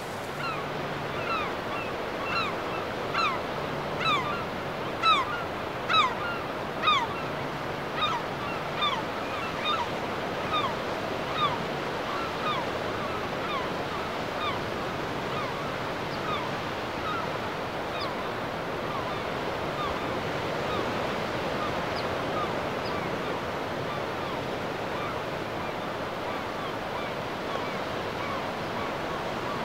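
Sea surf breaking and washing onto a beach, a steady rush. Through the first half a bird calls over it about once a second, each call short and dropping in pitch, growing louder and then fading away.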